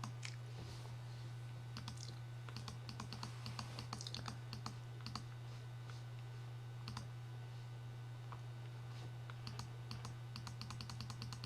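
Computer keyboard and mouse clicking in scattered runs, over a steady low hum.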